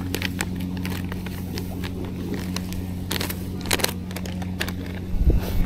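Plastic bag of dry groundbait being handled and poured into a mix that has come out too wet, giving scattered crinkling clicks. Under it runs a steady low motor hum.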